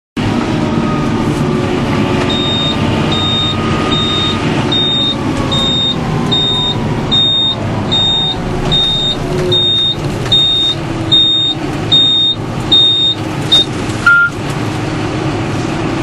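John Deere 6930 tractor running, heard inside the cab, with a whine that falls in pitch over the first few seconds. A high electronic beep repeats a little more than once a second through most of it, then one lower beep sounds near the end.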